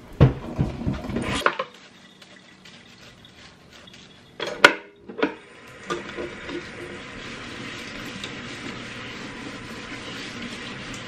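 Knife and kitchenware clattering in a stainless-steel sink, with a few sharp knocks just before the middle. Then a kitchen tap runs steadily onto a wooden cutting board as it is washed.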